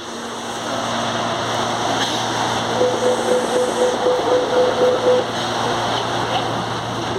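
Electric traction motors of a CPTM Série 8000 train growling under the car while it runs, over steady running noise with a constant low hum. For a couple of seconds in the middle a mid-pitched tone pulses on and off about five times a second.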